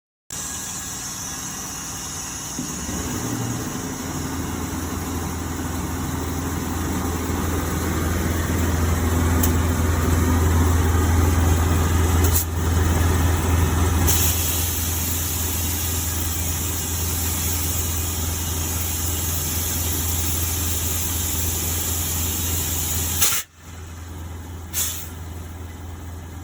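Heavy truck's diesel engine running steadily, its low hum building over the first several seconds. A hiss of air joins about halfway through. Near the end there is a sharp click, after which the sound continues more quietly.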